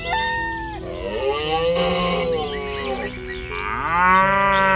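A cow mooing twice in long drawn-out calls, the second one rising and then cutting off abruptly near the end, over background music with held notes.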